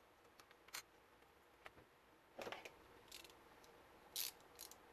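A few sharp little clicks as the Wi‑Fi antenna connectors are prised off a laptop's wireless card with a small screwdriver and the antenna cable is pulled free. The loudest click comes a little after four seconds in.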